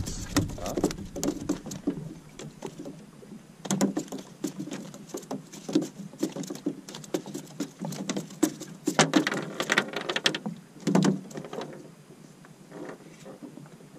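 A freshly caught mackerel flapping on the floor of a small aluminium boat: irregular flurries of rapid slaps and taps that die down near the end.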